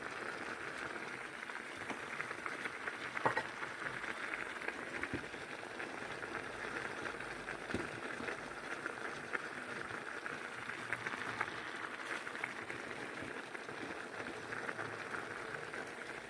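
Pea, carrot and turkey stew simmering uncovered in a frying pan on the hob: a steady soft bubbling and sizzling with fine crackles. A few light knocks stand out about three, five and eight seconds in.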